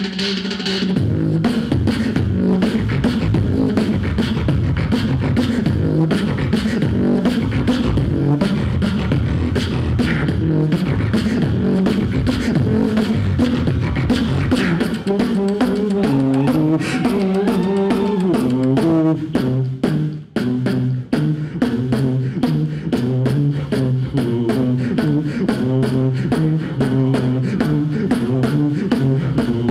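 Solo vocal beatboxing into a handheld microphone: a dense, fast beat of mouth-made kick and snare hits over a pitched bass line that steps between notes. The beat breaks off for a moment about two-thirds of the way through, then picks up again.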